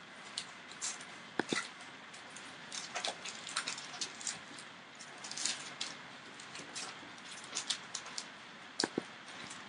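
18-day-old Entlebucher Mountain Dog puppies moving about, making many irregular small clicks and scuffs, with two sharper brief sounds about a second and a half in and near the end.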